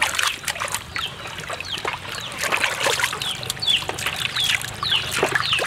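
Water splashing and sloshing in a metal basin as hands scrub a cow's head and beef pieces. Birds chirp over it, short falling chirps about twice a second.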